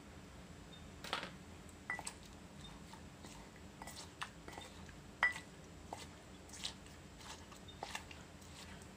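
Wooden pestle knocking in an earthenware mortar, bruising tomato and other som tam ingredients: irregular knocks and soft crunches, the loudest about five seconds in.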